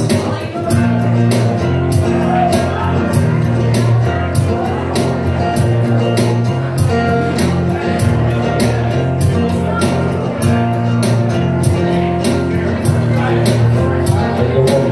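Rap-rock band playing live: guitar over a steady beat, with regular strikes about three times a second, in a passage without rapped lines.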